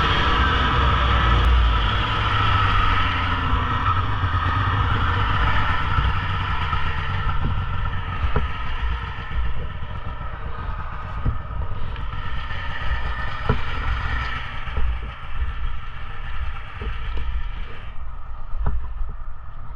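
Polaris Indy snowmobile engine running under way, strongest in the first few seconds and then easing off to a lower, steadier note. Scattered sharp knocks and clatter come through in the second half.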